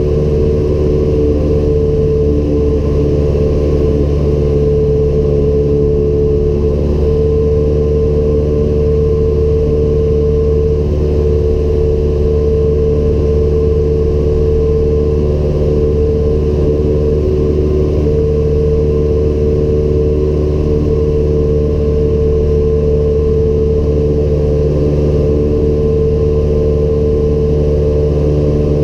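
Cessna 172M Skyhawk's four-cylinder Lycoming O-320 engine and propeller running steadily at cruise power, heard inside the cabin.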